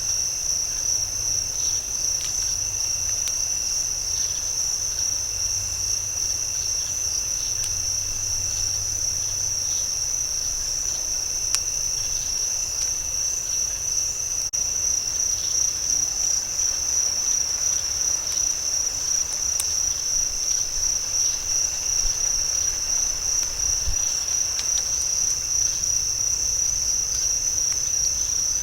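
Night insect chorus: a steady, high-pitched, unbroken trill of calling insects such as crickets, fluttering rapidly in loudness.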